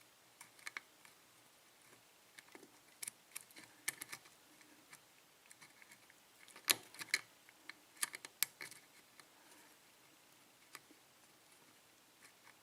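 Faint, irregular small metal clicks and ticks of a thin offset diamond lock pick working the pin stacks inside a 6-pin Dorma lock cylinder, with a louder cluster of clicks a little past halfway.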